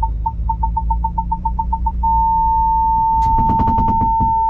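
Ford Bronco's parking-sensor alert: rapid beeping that quickens and then turns into one continuous tone about two seconds in, the sign that the nose is very close to an obstacle. Under it the engine runs low and steady, and about three seconds in a rapid run of sharp clicks joins in.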